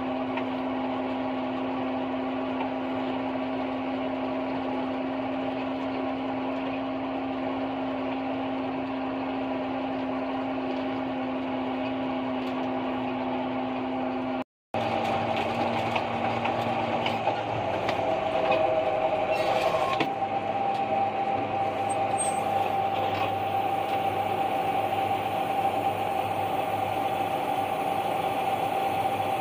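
New Holland FX28 self-propelled forage harvester running steadily as it chops corn: an even machine drone with a constant whine over it. The sound drops out for a moment about halfway through, then resumes as a steady hum with a slightly different pitch.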